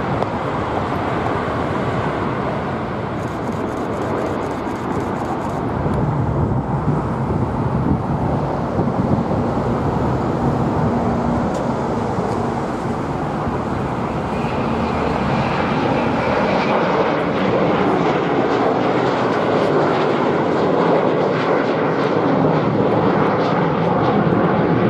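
Jet airliner engines at takeoff power, a steady jet noise that grows a little louder through the second half as a twin-jet with tail-mounted engines climbs out past the microphone.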